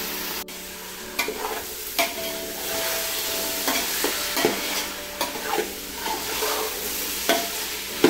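Raw chicken pieces being stirred into hot oil and fried onions in a metal pot: a steady sizzle, broken by irregular scraping knocks of the spatula against the pot.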